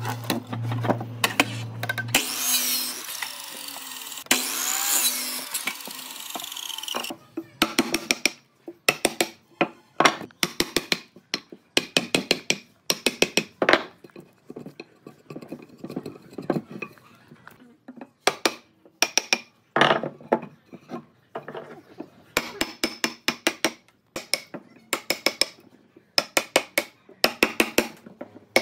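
Woodworking tool sounds. A power tool runs for about five seconds, then repeated clusters of short, sharp knocks and taps follow, with short pauses between them.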